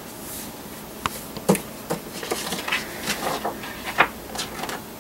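Pages of a picture book being flipped through by hand: paper rustling with several light knocks and taps as the pages and cover move.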